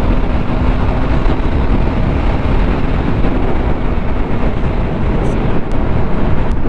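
Wind rushing over the microphone of a moving motorcycle, with the engine's steady hum underneath for the first few seconds.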